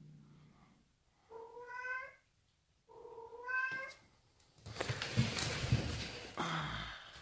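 Bengal cat giving two drawn-out, wavering meows, each under a second long, in a tense standoff with another cat. About a second later comes a louder, harsh, noisy sound lasting about two seconds.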